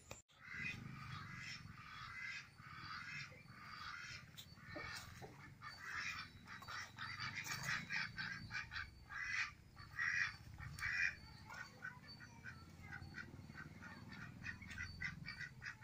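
White domestic ducks quacking repeatedly in short calls, with a quick run of quacks near the end.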